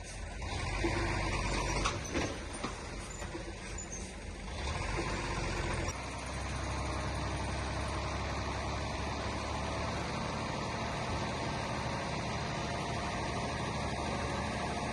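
Heavy diesel engine of construction machinery running, with a short hiss and a few knocks in the first two seconds, then settling into a steady drone from about six seconds in.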